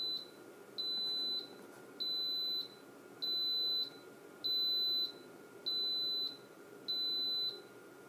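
Instant Pot electric pressure cooker's end-of-cooking alarm: a high-pitched electronic beep of about half a second, repeating evenly about once every 1.2 seconds. It signals that the pressure-cooking time is up and the pot has switched to keep-warm.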